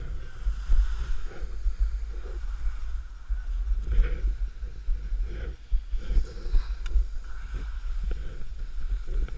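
Wind buffeting a body-worn camera's microphone while skiing downhill, with skis scraping and hissing over lumpy snow in irregular bursts.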